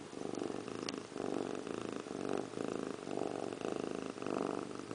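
A domestic cat purring close to the microphone, the purr pulsing evenly about twice a second as it alternates with the cat's in- and out-breaths.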